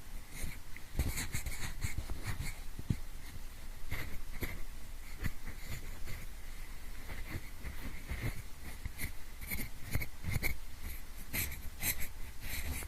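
Pencil scratched and tapped close to the microphone in many short, irregular strokes, imitating the scraping of ear cleaning in both ears at once.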